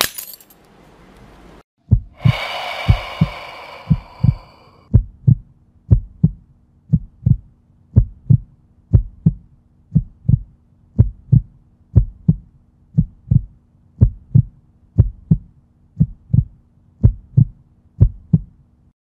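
Heartbeat sound effect, double thumps about once a second over a low steady drone, after a sudden hit with a ringing shimmer about two seconds in.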